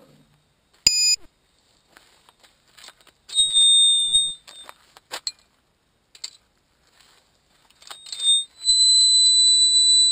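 High-pitched electronic buzzer beeping on a landed FPV quadcopter. There is a short chirp about a second in, a tone lasting about a second and a half near the middle, then a loud steady tone that starts near the end and holds. Faint clicks come between the beeps.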